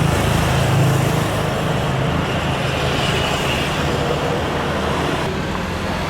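Steady low engine rumble mixed with wide noise, with no clear single event.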